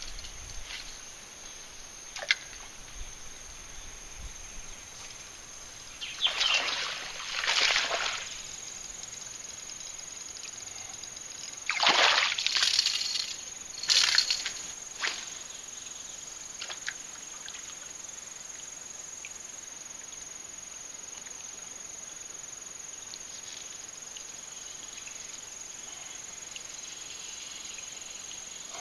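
Four water splashes at the surface, two close together about six seconds in and two more about twelve seconds in, the third the longest and loudest, over a steady outdoor background hiss.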